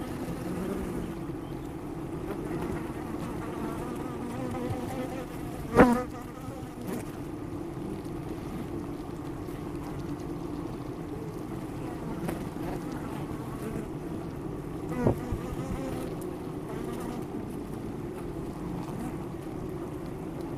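Honey bees at a hive humming steadily, with the close buzz of many bees. Two short loud bumps stand out, about six and fifteen seconds in.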